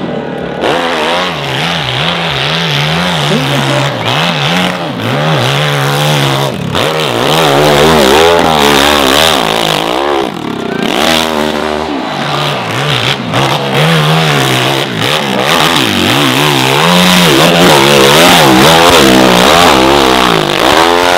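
Hill-climb motorcycle engine revving hard under full load on a steep dirt slope. Its pitch rises and falls again and again with the throttle, with a few sudden breaks.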